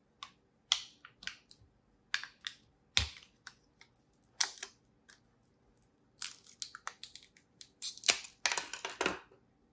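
Crinkling, crackling and tearing of a coin-cell battery's plastic-and-card blister pack as it is pierced and pried open with a small screwdriver. It comes as irregular short snaps, with one sharp crack about three seconds in and a busier run of crackles near the end.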